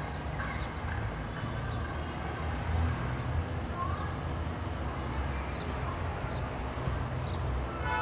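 Outdoor ambience: a low, uneven rumble with a few faint, short bird chirps scattered through it.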